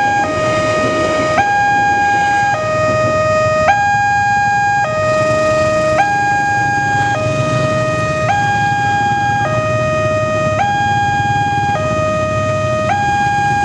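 Electronic warning siren of a railway level crossing sounding a steady two-tone hi-lo alarm, switching between a lower and a higher pitch about every second, signalling that a train is approaching and the barrier is closed. A low rumble runs underneath.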